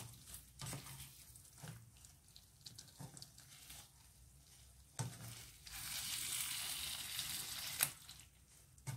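Plastic spatula stirring a thick, simmering prawn sauce in a coated frying pan, knocking and scraping against the pan several times, over a sizzle. From about five seconds in, a louder steady sizzle lasts nearly three seconds and ends with a sharp knock.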